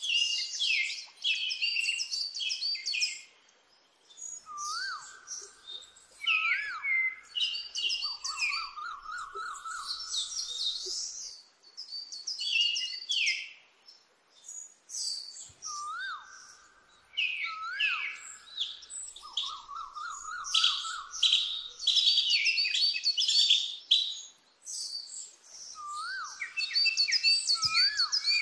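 Birdsong: several birds chirping and trilling in high, quick phrases, the same sequence recurring about every 11 seconds, as in a looped nature-sound track.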